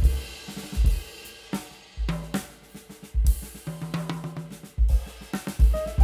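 Background music in a drum break: kick, snare, hi-hat and cymbal hits with bass thumps, no vocals, and the melody returning near the end.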